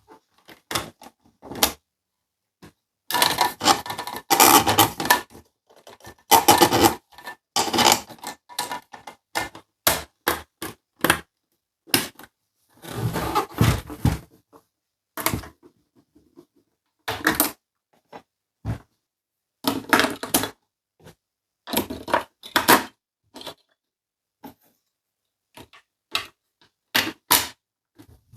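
Small plastic toy pieces and packaging handled up close: irregular clicks, taps and light clatter, with a few longer stretches of rustling and scraping.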